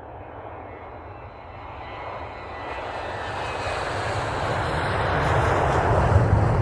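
McDonnell Douglas DC-9 jet airliner taking off, heard from outside: the noise of its two rear-mounted turbofan engines grows steadily louder, with a low rumble building in the second half.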